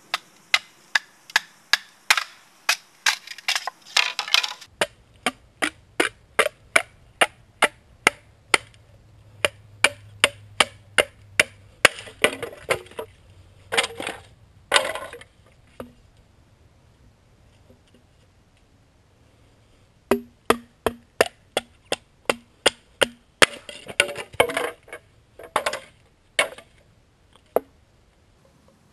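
A wooden baton striking the spine of a knife driven into green bamboo to split it: sharp knocks at about two a second, stopping for a few seconds midway and then starting again, with crackling bursts among them.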